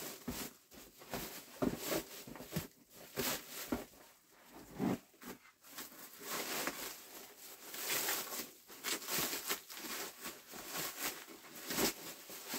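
Plastic wrapping rustling and crinkling in irregular bursts as a new golf cart bag is unwrapped and handled.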